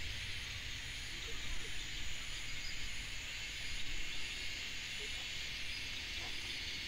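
Quiet outdoor ambience: a steady high hiss, a thin high pulse repeating about twice a second, and a low rumble underneath.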